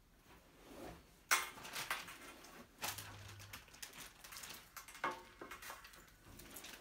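Small toys being handled and set down on a glass tabletop: scattered light knocks with rustling in between.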